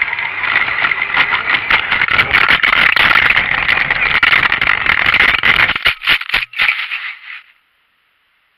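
RC car driving hard through snow, heard from its onboard camera: a loud, rattling run of drivetrain noise and snow hitting the chassis, full of knocks. It cuts off suddenly about seven and a half seconds in, leaving only a faint hiss.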